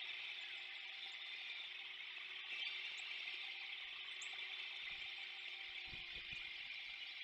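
Steady high-pitched insect chorus droning without a break. A few low dull thumps come about five to six and a half seconds in.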